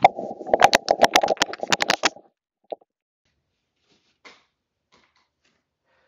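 Rustling and crackling of clothing handled close to the microphone for about two seconds, full of rapid sharp clicks, then a single click and a few faint soft rustles.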